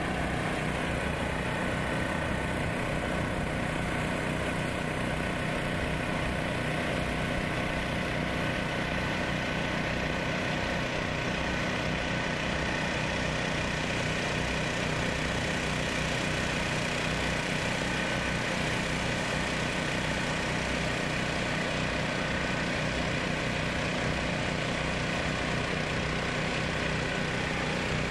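Steady, unchanging drone of running engines, a low hum with a few held tones over it, typical of food truck generators running.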